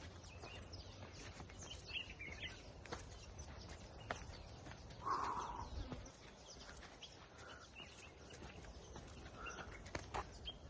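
Quiet outdoor ambience with scattered bird calls: short high chirps and one louder, lower call about five seconds in. A few faint clicks are heard, like footsteps on a trail.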